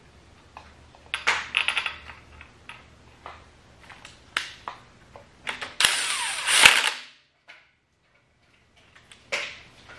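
Light metallic clinks and knocks as parts are handled on the engine's timing end, then a cordless power tool runs for about a second on the crankshaft gear bolt, lightly snugging the gear. Its pitch falls as it stops.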